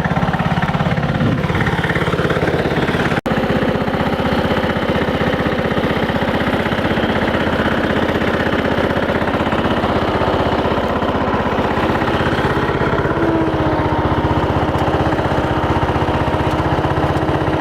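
Small Craftsman lawn tractor engine running steadily through a makeshift tin-can exhaust, with a fast, even firing beat. The sound breaks off for a split second about three seconds in.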